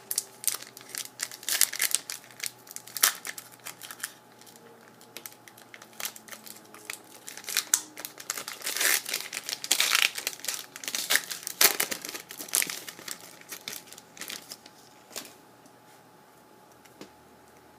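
Foil wrapper of a hockey trading-card pack crinkling and tearing as it is opened and handled, a dense run of irregular crackles that dies away about fifteen seconds in.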